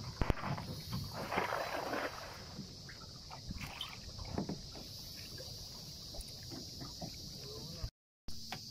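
A lead-weighted cast net is thrown from a canoe: a few sharp clicks as it leaves the hands, then about a second in a short splashing hiss as the net spreads and drops onto the water, followed by small knocks and drips as the line is drawn in. A steady high-pitched insect drone runs underneath.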